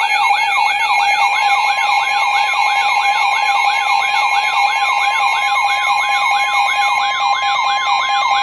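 Weather radio alert sounding for an incoming severe thunderstorm warning: a siren-like tone sweeping up and down about three times a second over a steady high alarm tone.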